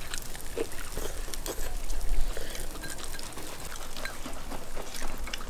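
Close-up eating sounds: chewing grilled lamb chop, with scattered small clicks of wooden chopsticks against a glass bowl.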